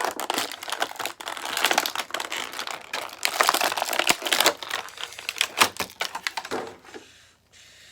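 Plastic toy packaging crinkling and crackling in irregular bursts as it is handled and pulled open, dying away about seven seconds in.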